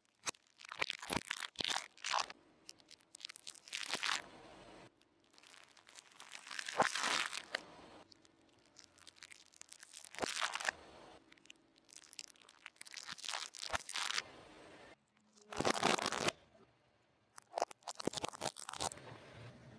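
Car tyre slowly rolling over and crushing objects on asphalt, close to the microphone: a series of separate crunching, crackling and tearing bursts, each a second or two long with sharp cracks in them. Near the end, walnut shells crack under the tyre.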